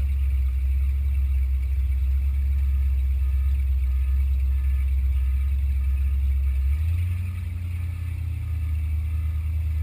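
Boat engine running steadily under way, a loud low hum that steps up to a higher note about seven seconds in.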